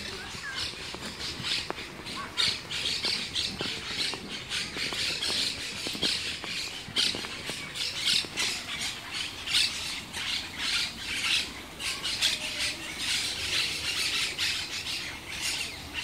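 Parrots squawking over and over in the trees, harsh shrill calls overlapping from several birds.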